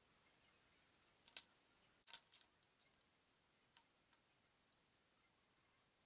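Faint taps and clicks of a dovetail saw and small wood pieces being handled and set down on a workbench. The sharpest click comes about a second and a half in, with a short cluster just after two seconds, then a few faint ticks.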